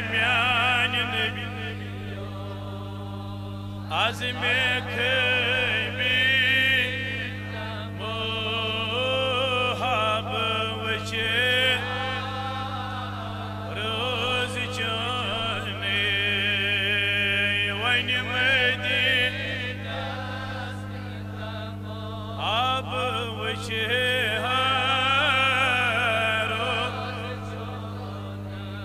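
Solo male voice singing a naat, a devotional poem in praise of the Prophet, with no instruments. The melodic phrases waver with heavy vibrato and break off for a second or two between lines. A steady low hum runs underneath.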